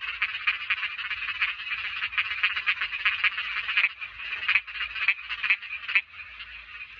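Chorus of small frogs (Thai khiat) calling, many rapid pulsed croaks overlapping. The loudest nearby calls stop about six seconds in, leaving a fainter chorus.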